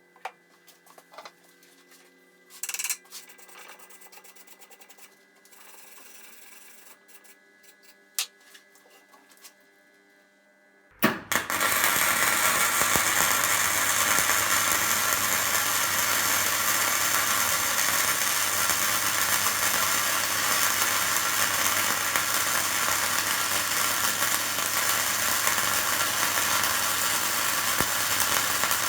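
Faint clicks and handling knocks, then about eleven seconds in a MIG welder strikes its arc and runs a continuous, loud crackling weld with gasless flux-cored wire. Its welder finds this a bit more violent and noisy than welding with gas.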